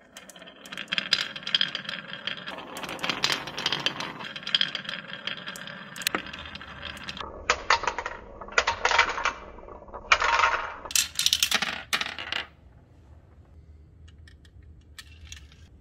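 Marbles rolling and clattering down a wavy wooden track, clicking against one another, then dropping in several bursts into a toy pickup truck's bed. After about twelve seconds the clatter stops, leaving only a few faint clicks near the end.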